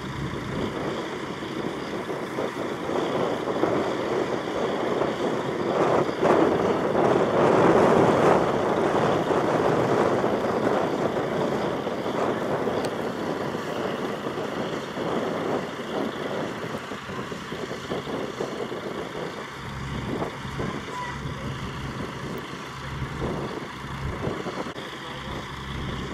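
Heavy vehicle engine running: a rushing noise swells to its loudest about a third of the way in and fades, then a steady low diesel hum takes over for the last several seconds.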